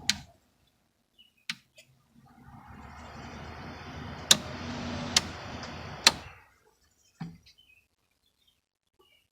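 Sharp clicks from the control switches of a 1995 Panasonic 7,800 BTU window air conditioner. In the middle, the unit's fan runs with a steady hum for about four seconds, then dies away. Three more clicks land about a second apart while it runs, and one click follows after it stops.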